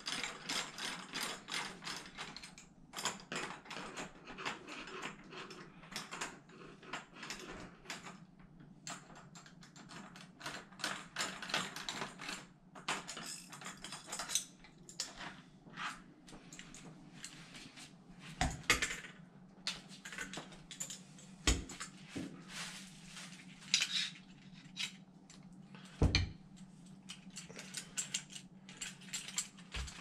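A hand screwdriver backs out the mounting screws of a brushed-nickel door knob, making a quick run of small metallic clicks through the first half. The knob's metal parts are then pulled apart and handled, with a few sharp clicks and knocks. A faint steady hum runs underneath.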